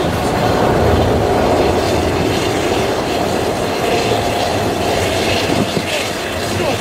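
Steady turbine whine over a low rumble from machinery running around a parked airliner on the apron.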